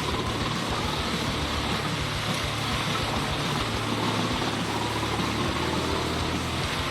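Engine of a large wood chipper running steadily.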